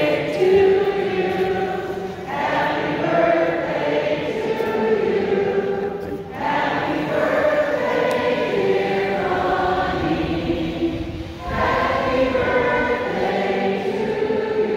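A large group of people singing together, holding long notes in phrases broken by short breaths about every four seconds.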